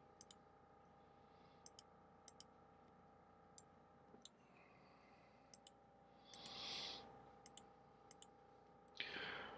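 Faint computer mouse clicks, single and in quick pairs every second or so, as shapes are selected in the software, over a faint steady hum. Two brief soft hisses come about six and nine seconds in.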